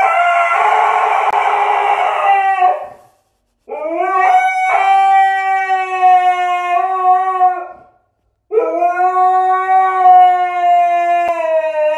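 Husky howling in long, drawn-out howls, each sliding up in pitch at the start and then holding steady. A howl is under way as it begins, a new one starts about four seconds in, and another about eight and a half seconds in.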